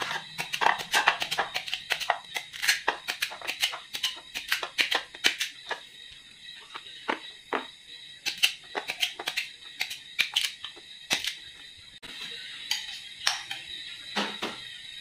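Kitchen knife slicing firm green guava held in the hand, a series of short crisp cutting cracks, rapid at first and sparser later.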